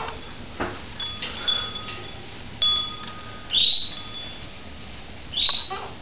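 Pet parrot giving two short, loud calls that rise in pitch, about two seconds apart. Before them come a few faint knocks and short ringing clinks.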